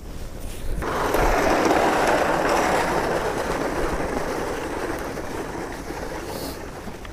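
Hand ice auger grinding through thick lake ice: a steady scraping crunch that starts about a second in and slowly fades.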